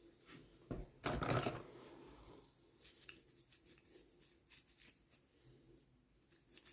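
Hands handling small plastic toy packaging and pieces close to the microphone: scattered light clicks and ticks, with one louder handling noise about a second in.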